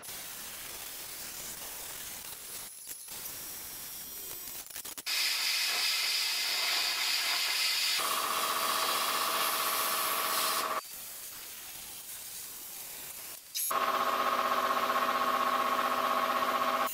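Handheld plasma cutter cutting steel plate: a steady hiss of the arc and air jet, heard in several separate stretches. The two loudest stretches carry a steady high buzz over the hiss.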